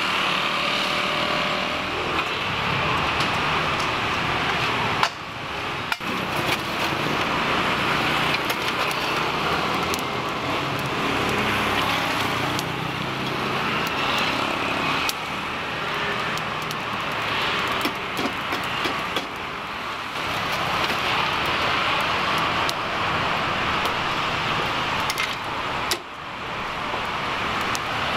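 Roadside street ambience: a steady hum of passing traffic, with occasional light clicks and knocks.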